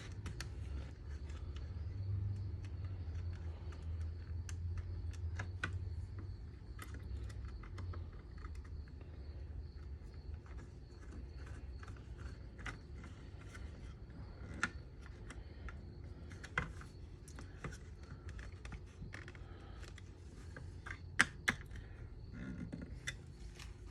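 Irregular small clicks and taps of hand work on a motorcycle trunk latch assembly as a screw is driven in by hand and the metal and plastic parts are handled, with a few sharper clicks near the end.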